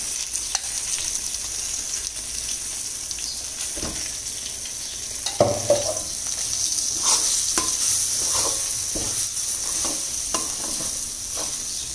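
Ground urad dal batter sizzling in hot sesame oil in a kadai, with a steady high hiss. From about four seconds in, a steel slotted spatula scrapes and knocks against the pan again and again as the batter is stirred; the loudest knock comes about halfway through.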